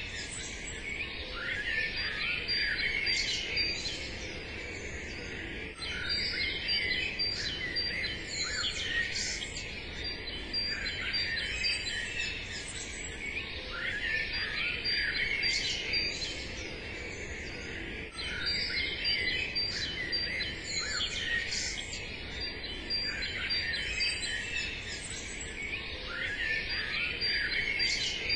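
Songbirds chirping and singing: a dense chorus of short calls and trills over a steady faint hiss, as in a recorded nature ambience, with sudden jumps in level about 6 and 18 seconds in.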